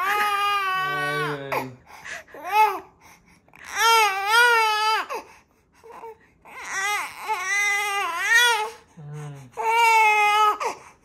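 A four-month-old baby crying, about five long wails that arch up and down in pitch with short pauses for breath between them. The baby is crying from fright after being startled.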